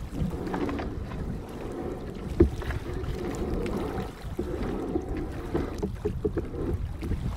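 Single-blade canoe paddle strokes and water lapping at the hull, with wind on the microphone. One sharp knock about two and a half seconds in, and a few lighter clicks near the end.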